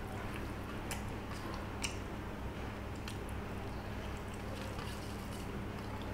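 Eating rice and fish curry by hand from a steel plate: fingers mixing and squishing the wet rice, with chewing and a few short sharp clicks.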